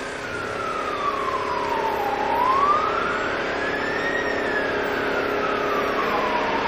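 Emergency vehicle siren in a slow wail: the pitch falls, rises and falls again, one full sweep taking about four seconds, over a steady low hum.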